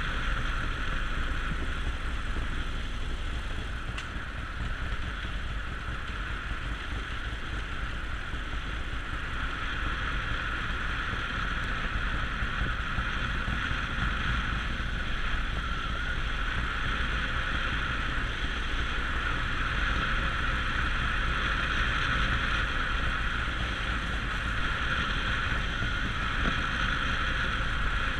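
Harley-Davidson Sportster Forty-Eight (XL1200X) motorcycle's V-twin running steadily on the move, with wind rushing over the microphone.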